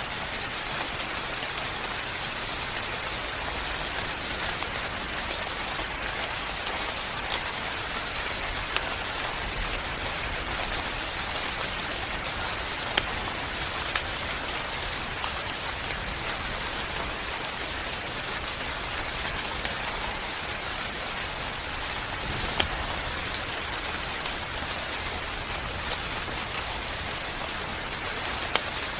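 Steady rain falling on a surface, an even hiss with scattered louder drop ticks.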